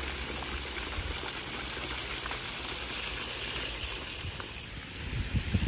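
Fountain water splashing steadily: jets falling onto a rock pile and water pouring over a stone wall into a pool. A few low thumps near the end.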